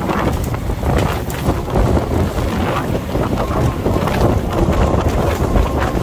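Strong wind buffeting the microphone on the open deck of a small fishing boat running through rough, choppy sea, with the rush of waves and spray along the hull.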